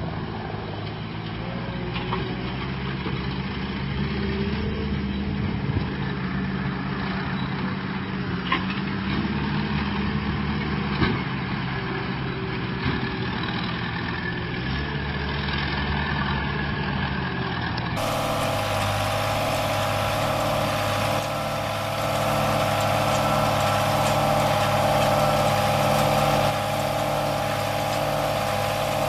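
Farm tractor engines running steadily in the hay field. About two-thirds of the way through, the sound changes abruptly to a closer, slightly louder and brighter engine and machinery noise: a red Fiat tractor working a small square baler.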